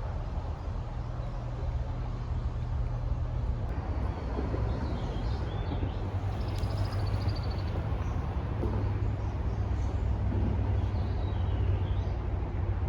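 Songbirds chirping, with a short trill about halfway through and more calls later, over a steady low rumble.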